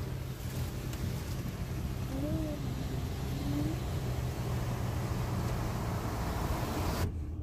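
Steady cabin noise inside a 2021 Kia Sportage with the engine running: a low hum under a hiss that grows a little, cutting off abruptly near the end.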